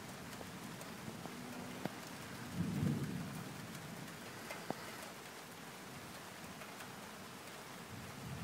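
Steady hiss of thunderstorm rain, with a short low rumble of distant thunder about three seconds in and two sharp ticks.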